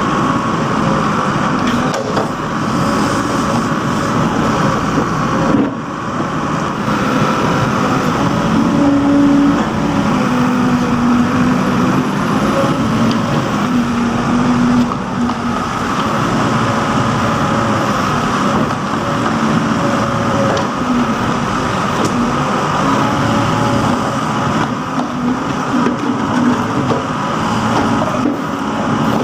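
Backhoe loader's diesel engine running steadily while digging, with a constant hum. Its pitch shifts and steps up and down for a few seconds in the middle.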